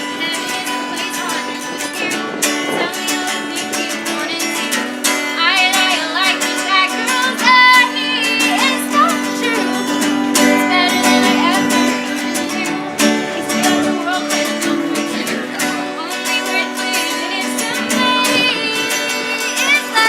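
Music with a plucked guitar and a singing voice.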